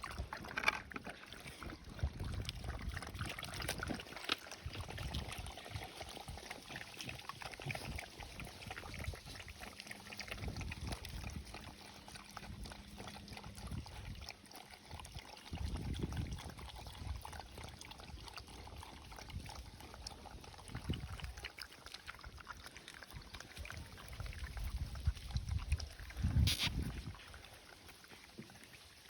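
Dogs lapping up milk, with uneven wet liquid sounds and one sharp knock near the end.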